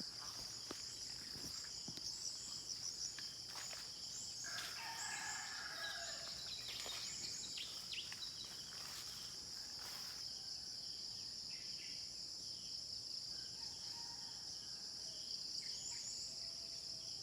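Steady high-pitched drone of insects in a rural dawn chorus, with scattered bird chirps and a rooster crowing about five seconds in.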